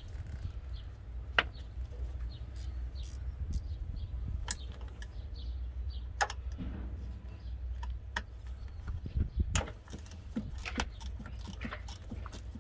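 Scattered metallic clicks and clinks of hand tools and engine parts being handled during work in a car's engine bay, at irregular intervals over a steady low rumble.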